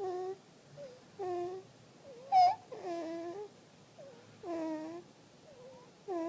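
A two-month-old baby snoring in sleep: a short squeaky grunt with each breath out, about every second and a half, and a fainter rising squeak on each breath in. The highest, loudest squeak comes about two and a half seconds in.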